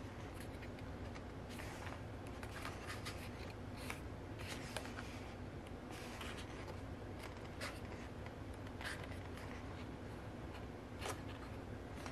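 Pages of a photobook being turned and handled: irregular paper rustles and soft flicks, over a steady low hum.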